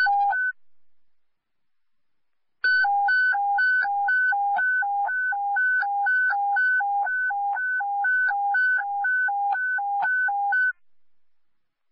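Hi-lo alert tone over a dispatch radio channel: two tones alternating high and low about twice a second, a short burst, then after a brief pause about eight seconds of steady alternation. It is the attention tone that comes before a page calling out all ambulance squads.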